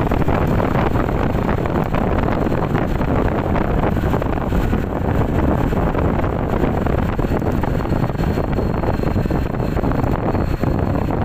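Steady wind rush over the microphone of a motorbike ridden at about 55–60 km/h, mixed with the bike's engine and tyre noise.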